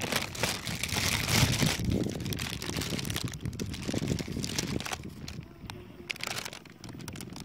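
Plastic bag holding a catch of small fish crinkling and rustling as it is handled, loudest about one to two seconds in.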